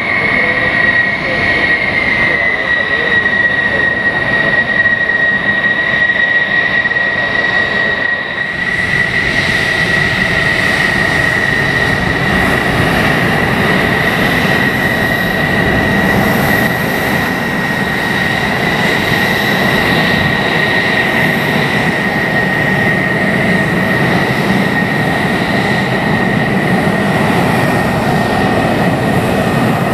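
F-16 fighter jet engine at taxi power: a steady high-pitched whine over a broad rushing jet noise, the whine dipping slightly in pitch in the first couple of seconds. About eight seconds in the sound shifts abruptly and gains more hiss.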